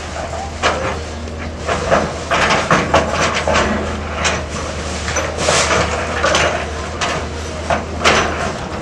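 XCMG excavator demolishing a building: the engine's steady low hum runs under a string of irregular crashes and clatters as walls and roofing are torn down and fall.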